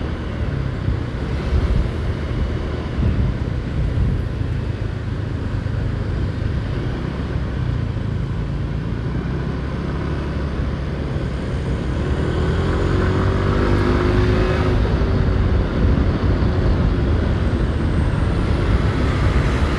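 Motorcycle ride through city traffic: steady engine and road noise, getting a little louder about halfway through.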